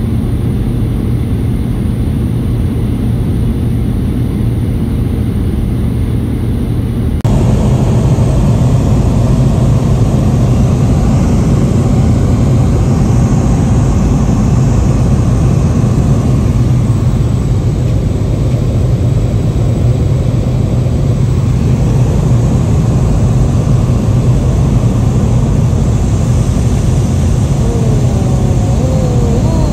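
Light aircraft's propeller engine droning steadily, heard from inside the cabin in flight. It gets a little louder and fuller at a cut about seven seconds in.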